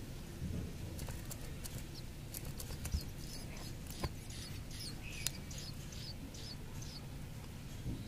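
Tailorbird nestlings giving thin, high begging cheeps in quick succession while being fed. A few sharp clicks sound among them.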